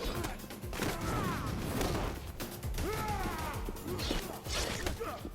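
Action-film fight soundtrack: music under repeated crashing and smacking impacts, with bending vocal cries about a second in and again near the middle.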